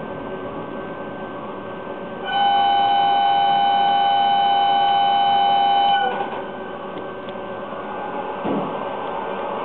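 A loud, steady two-tone train horn sounds for nearly four seconds, starting about two seconds in and cutting off abruptly, over the steady running noise of an N-gauge model train. A single short knock comes near the end.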